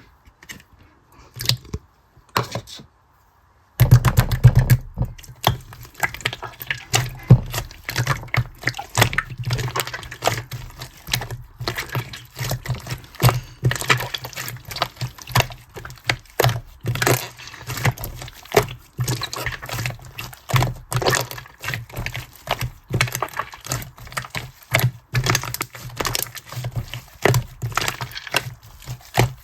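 Slime being squeezed and poked by hand, giving a dense, irregular stream of sticky clicks and pops that starts about four seconds in after a few scattered clicks.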